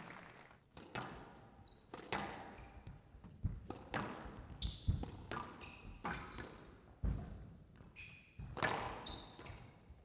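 Squash rally: the ball is struck hard by rackets and smacks off the walls about once a second, with squash shoes squeaking sharply on the court floor several times between the shots.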